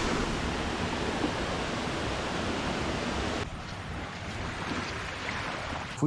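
Waterfall rushing with a steady, even noise of falling water. About three and a half seconds in it turns quieter and duller.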